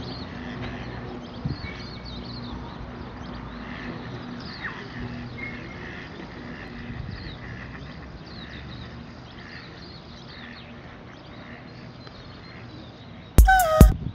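Ducks on a pond, with small birds chirping faintly throughout. Near the end comes a sudden loud, short call with a wavering pitch.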